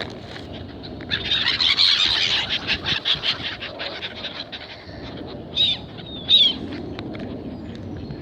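Seagulls calling: a burst of overlapping, squabbling calls for about three seconds, then two single calls with a falling pitch near the end.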